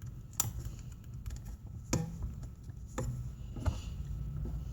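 A few separate small clicks and taps of parts being handled on the bench while a car amplifier is taken apart, over a low steady hum.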